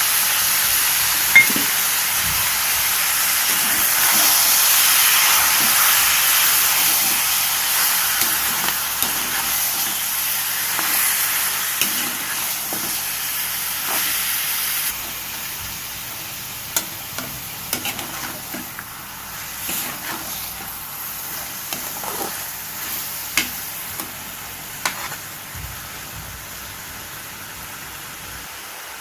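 Chicken pieces with tomato, turmeric and salt sizzling in a frying pan while being stirred, with a spatula clicking and scraping against the pan now and then. The sizzle drops abruptly about halfway through and grows fainter toward the end.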